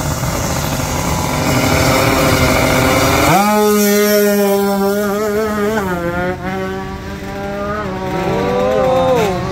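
Drag-racing motorcycle running at full throttle down the drag strip: a dense, loud engine sound at first, then from about three seconds in a steady high-revving drone with shifting overtones as it pulls away.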